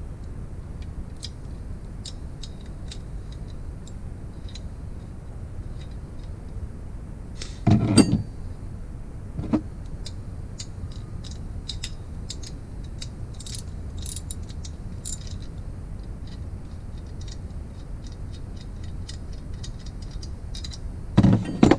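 Light metallic clinks and taps of hand tools and small engine parts being handled during a motorized-bike engine teardown, with a louder clunk about eight seconds in and more clunks near the end, over a steady low hum.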